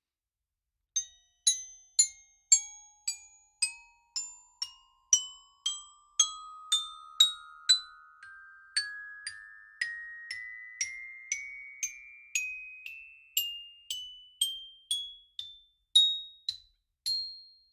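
Glockenspiel notes struck one at a time, about two a second, each ringing briefly and dying away, climbing gradually in pitch like a slow rising scale.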